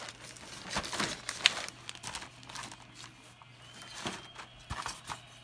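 Plastic wrapping on a boxed item crinkling and crackling as it is handled, in irregular rustles with one sharp crackle about a second and a half in.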